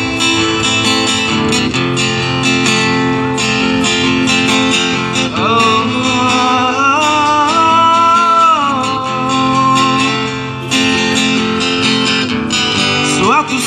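Amplified acoustic guitar being strummed while a man sings a melody without clear words, holding one long note about halfway through.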